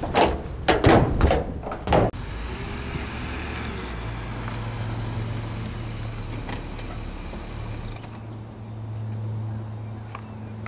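A few loud knocks and bumps in the first two seconds, then a car engine idling with a steady low hum, which dips briefly about eight seconds in.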